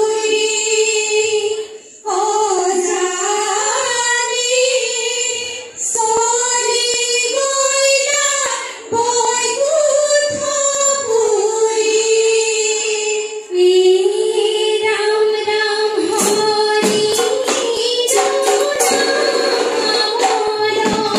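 A chorus of young women singing an Assamese dihanam devotional song into microphones, in long sung phrases with short pauses for breath. From about sixteen seconds in, rhythmic clapping and percussion join the singing.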